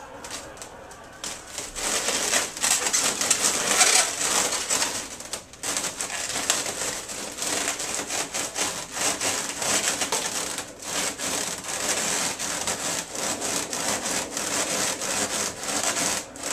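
Latex modelling balloons of a hand-worn balloon puppet rubbing and squeaking against each other and the hand as the puppet is worked. A dense, crackly rubbing that goes on almost without a break, dropping away briefly twice.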